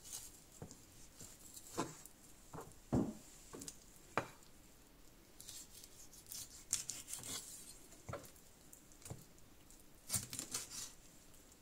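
Large kitchen knife cutting raw chicken drumsticks on a plastic cutting board. The blade knocks against the board at irregular moments, with stretches of slicing and tearing through skin and meat in between.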